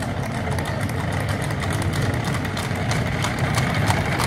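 A horse-drawn carriage rolling over cobblestones: a steady low rumble from the wheels, with light clip-clop of hooves growing louder near the end as the pair of horses comes closer.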